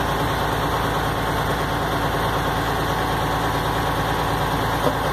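Reassembled piston water pump running steadily with a fast, even pulsing churn. Its new packing seals are bedding in, which the mechanics give as the reason for its strange noise.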